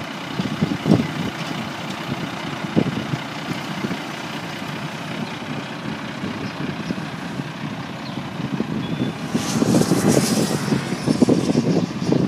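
Diesel engine of a 1991 International 4900T dump truck running as the truck moves slowly, a steady rumble that grows louder and rougher near the end. A short burst of hiss comes about ten seconds in.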